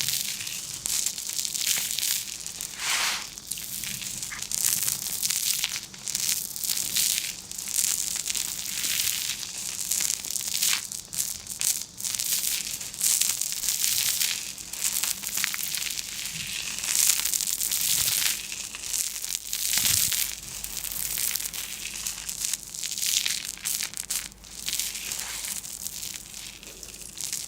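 Continuous irregular crinkling and crushing, a dense crackle with no pauses.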